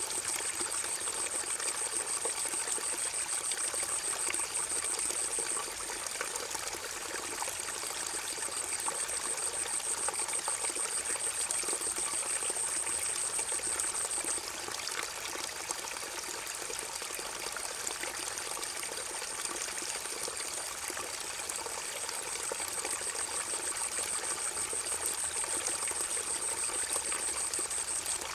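River water gurgling and trickling steadily. Over it is a high, thin buzz that runs for several seconds at a time, stops for a few seconds, and comes back, three times in all.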